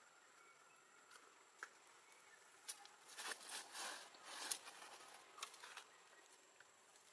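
Faint rustling and crackling close by, mostly a burst of quick clicks and scratchy rustles from about three seconds in to about four and a half seconds, with a few lone clicks either side, over near silence.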